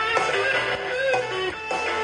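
Live blues-rock band playing an instrumental section: an electric guitar lead with bent, sliding notes over bass guitar and drums.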